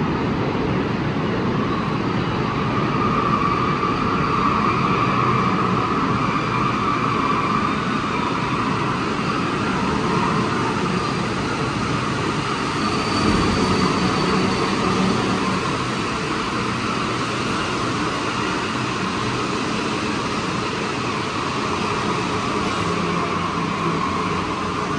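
Santiago Metro Line 1 rubber-tyred train running through a station, a steady rumble with a running whine.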